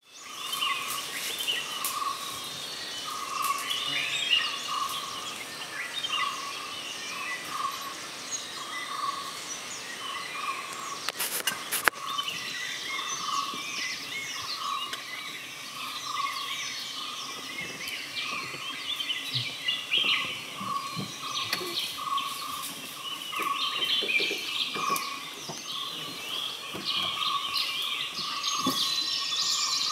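Forest birdsong: many birds chirping, with one bird repeating a single low note about once a second throughout. A sharp click about 12 seconds in.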